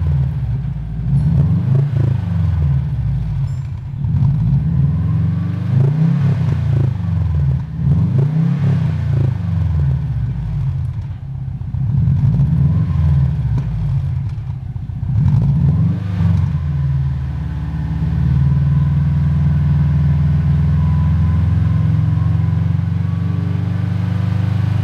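Turbocharged Subaru engine revved up and let fall repeatedly, about every two seconds, then settling to a steady idle about two-thirds of the way through. A metallic rattle from the turbocharger area comes in as the revs drop.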